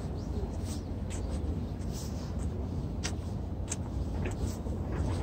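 Steady low outdoor rumble with scattered short, high clicks.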